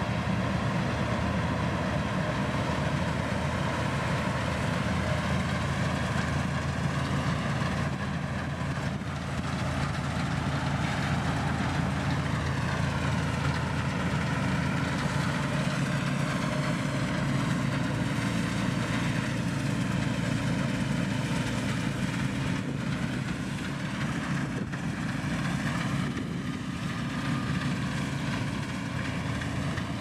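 New Holland TX32 combine harvester running steadily as it harvests, a continuous engine and threshing drone with higher tones that waver slightly up and down.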